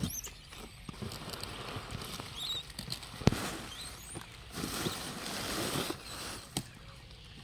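Newspaper and straw packing rustling and crinkling as they are handled in a cardboard fruit carton, loudest near the end, with a sharp click a little before the middle and a few faint high chirps.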